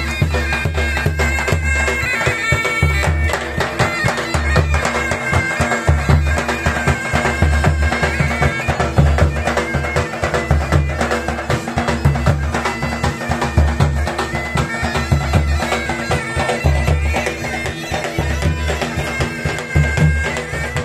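Folk music on a dhol and a been (a bagpipe): the dhol beats a steady rhythm under the been's droning tones and melody.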